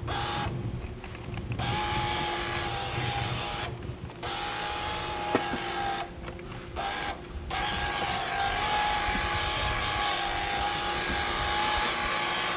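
Small electric motor of a Bass Pro Shops Nitro RC fishing boat running with a steady high whine. It cuts out and starts again four times in the first half, then runs steadily, with one sharp click about five seconds in.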